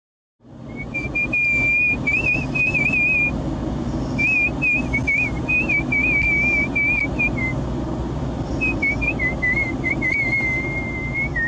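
A person whistling a wavering, trilling tune in three long phrases over a steady low rumble.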